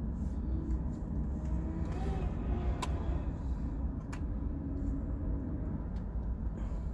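Steady low rumble with two sharp clicks, about three seconds in and again a second later.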